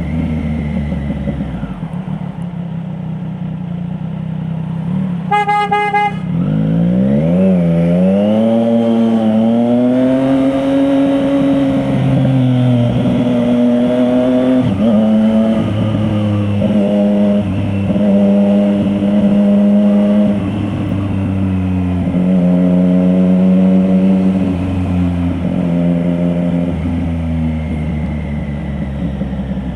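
2024 Triumph Street Triple RS 765's inline three-cylinder engine through an SC Project S1 slip-on with the baffle removed, ridden in traffic. A horn honks briefly about five seconds in. Then the engine pitch rises through a long acceleration and settles into steady running, with the throttle rolled off and on several times.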